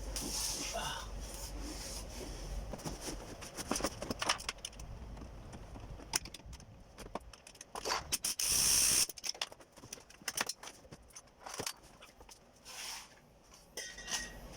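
Hand tools working the engine mount bolts under a car: a run of quick metallic clicks and clinks, as from a ratchet wrench and socket being turned and handled. A hiss of about a second comes a little past halfway.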